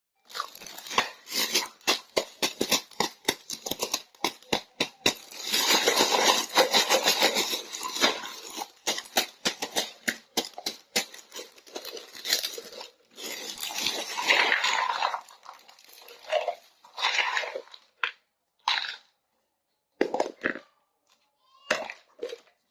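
Small plastic toy pieces and their packaging being handled: a quick run of sharp clicks and taps, then two stretches of crinkling and tearing packaging, with sparser clicks later on.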